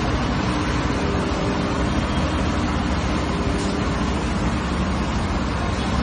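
Bawoo V67 skid steer loader's engine running steadily as the machine pushes into a dirt pile, with a faint whine coming and going twice.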